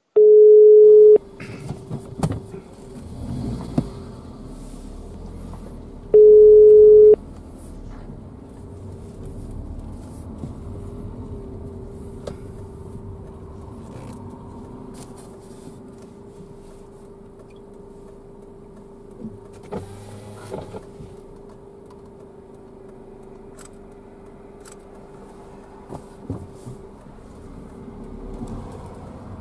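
Two loud one-second electronic beeps, one near the start and one about six seconds in. After them comes the steady hum and rumble of a car being driven, heard from inside the cabin, with scattered light clicks and knocks.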